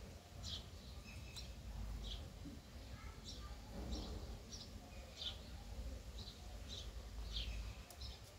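Pet parrot chirping, a string of short high calls a little more than one a second.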